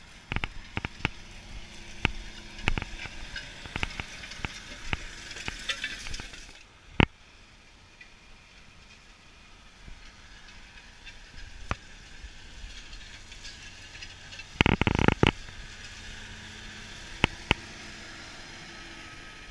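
Crackling and sharp clicks close to the microphone, with a louder burst of crackle about fifteen seconds in, over a faint low hum of a tractor engine at a distance.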